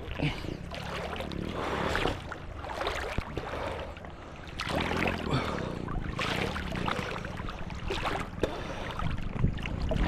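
Choppy seawater sloshing and splashing around an action camera held at the water's surface by a swimmer, with the level rising and falling as small waves wash past.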